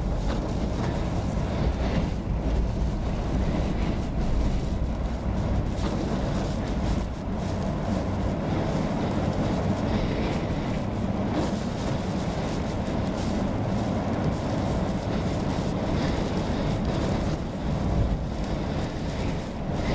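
Car cabin noise while driving on a wet road in hurricane wind and rain: a steady low rumble of tyres and engine, with wind and rain against the car.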